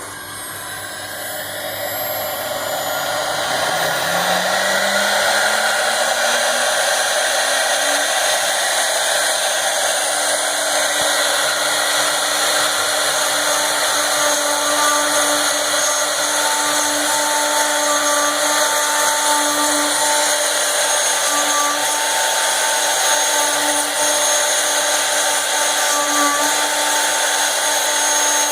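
CNC router spindle spinning up, its whine rising in pitch over the first several seconds, then running steadily at full speed with a dense whirring hiss while machining.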